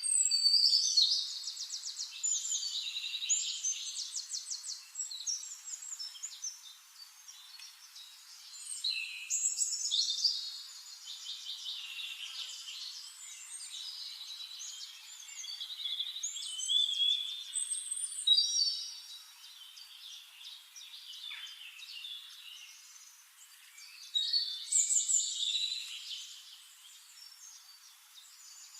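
A songbird singing: four long phrases of rapid, varied high notes, separated by short pauses.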